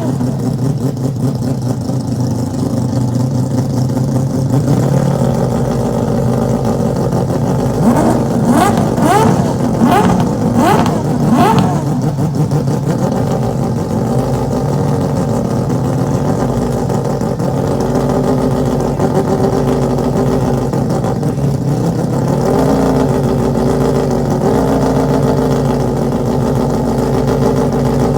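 A Mazda four-rotor rotary engine idling, blipped sharply four or five times near the middle so that its pitch jumps and falls back. It then settles into a steady, slightly uneven idle.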